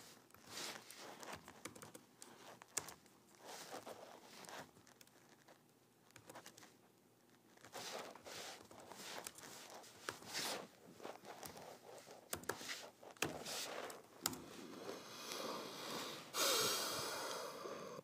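Typing on a laptop keyboard: soft, irregular key clicks and taps. Near the end comes a short, louder rushing noise.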